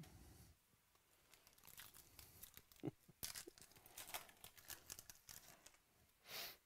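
Foil wrapper of a Topps Gold Label baseball card pack being torn open and crinkled by hand: faint, irregular crackling rustles, with a short louder rip near the end.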